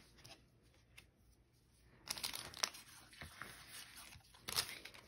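Faint crinkling of a Pokémon booster pack's foil wrapper and cards being handled, starting about two seconds in, with two louder crinkles.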